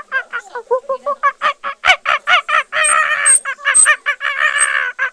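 A flock of domestic waterfowl calling in quick, repeated honks, about four a second. In the second half many birds call over one another in a dense chorus.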